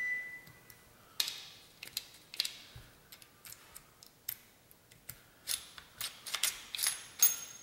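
An Allen wrench clicking and scraping in a screw head as a receiver screw is backed out of a USFA Zip .22 pistol. Irregular small clicks and knocks of the wrench and gun parts being handled follow. They come thicker and sharper in the last couple of seconds.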